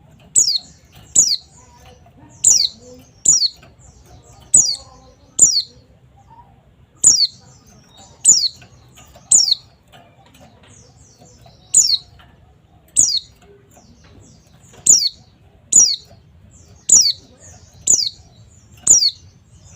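White-eye (pleci) calling: short, high, sharp notes, each sliding downward, repeated about once a second and sometimes in quick pairs, with brief pauses between runs.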